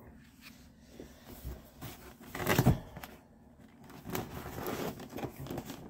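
Rustling and small knocks of a box being handled on a desk, with one louder, brief rustle about two and a half seconds in.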